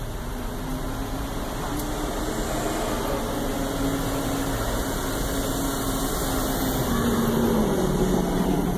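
A steady mechanical hum with a low tone that wavers and drops lower near the end.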